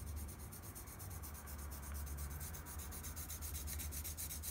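Colored pencil shading on paper in quick, even back-and-forth strokes, a soft steady scratching.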